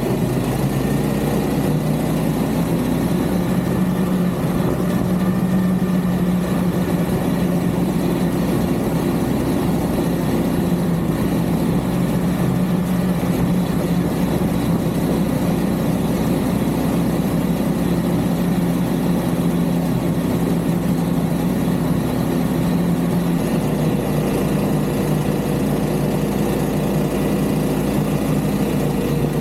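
A vehicle engine running steadily under way, its drone holding a fairly even pitch and picking up slightly about 24 seconds in.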